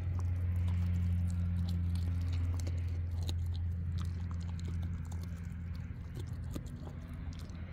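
German shepherd puppy chewing and crunching on food, a run of small irregular clicks and crunches from its teeth. A steady low hum runs underneath and is the loudest part.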